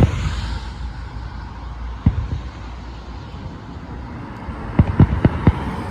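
Fireworks going off: a bang at the start, another about two seconds in, then a quick run of about five sharp cracks near the end, over a steady outdoor rumble.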